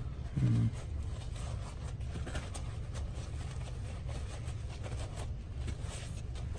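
Faint, irregular rubbing of a cloth wiping a knife blade clean of window cleaner, over a steady low hum. A short, louder low sound about half a second in.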